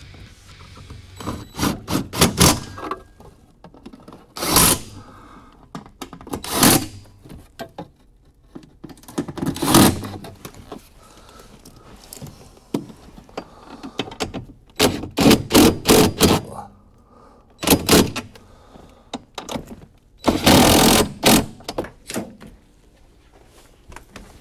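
Irregular clunks, knocks and rattles of metal car parts and hand tools being handled during hands-on work. They come in short clusters with quiet gaps between, and the longest clatter comes near the end.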